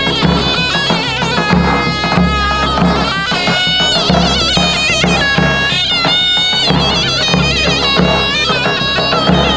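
Davul and zurna playing a folk tune. The shrill reed pipe carries a wavering, ornamented melody over regular beats of the large double-headed drum.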